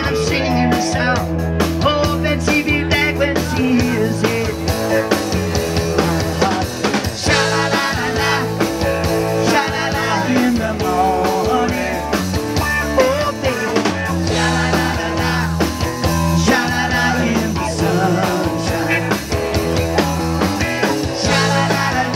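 Live rock band playing: electric guitar and drum kit, with a man singing lead into a microphone.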